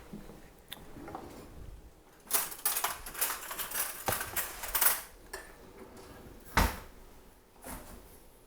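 Kitchen utensils and containers being handled, with a few seconds of irregular clattering and rustling and one sharp knock later on.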